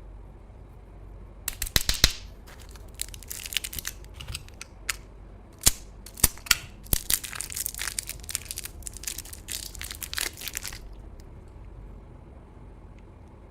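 Close-miked crunching of crispy grilled large intestine (daechang) being bitten and chewed: a run of sharp crackles that starts about a second and a half in and stops near the end.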